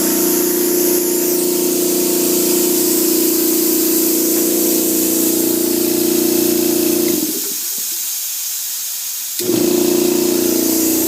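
Campbell Hausfeld air compressor running, its motor humming steadily over a hiss of air escaping from the outlet. About seven seconds in the motor cuts out while the air keeps hissing, then starts again about two seconds later. The owner says the pressure gauge reads wrong and the pressure switch probably needs replacing.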